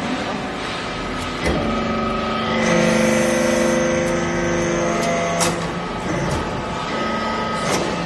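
Hydraulic metal-chips briquetting press running, its pump and motor giving a steady whine. The whine grows louder for a few seconds in the middle as the ram presses the chips. A few sharp clacks come from the mechanism.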